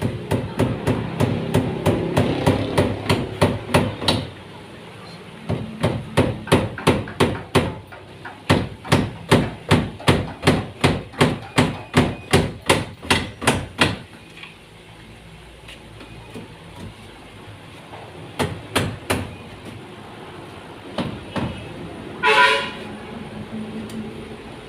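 Hammer driving nails into wood: runs of quick even strikes, about three a second, broken by short pauses, then a few scattered blows. A short pitched toot sounds near the end.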